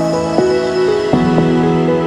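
Instrumental background music, with held notes that change every half second or so.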